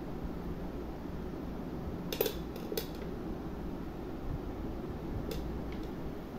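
Metal scissors set down on a wooden tabletop: two sharp clicks about half a second apart, about two seconds in, and a fainter click later, over a steady background hum.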